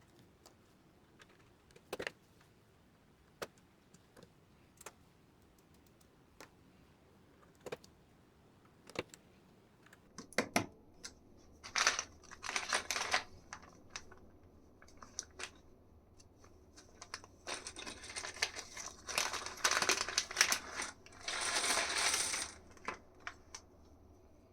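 Keyboard keys being pressed on a hand-built split keyboard: single clicks spaced a second or so apart, then several seconds of rapid, dense clattering in two stretches.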